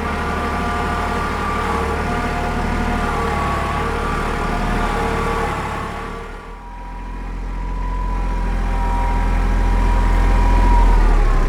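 Diesel tractor engine running under load, with a steady hydraulic whine above the low engine hum. It dips briefly about halfway through, then builds up louder toward the end as it revs.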